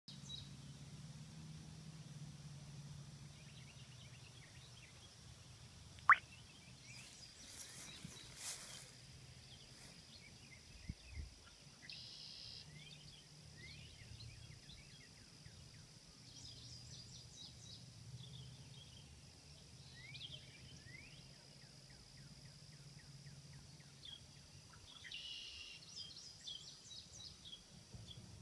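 Faint outdoor ambience: a steady high-pitched drone and a low hum, with scattered short bird chirps. There is one sharp, loud click about six seconds in.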